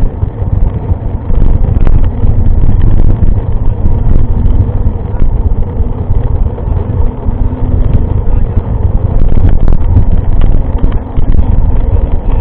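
Loud, steady low rumble with scattered clicks and rattles, the kind of wind and tyre noise a camera picks up while moving.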